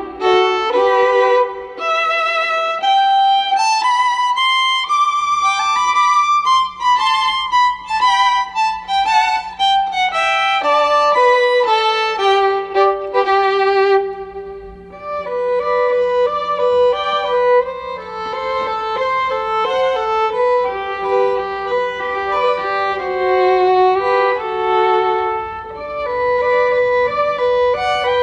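Background music: a violin playing a melody with vibrato, moving from note to note.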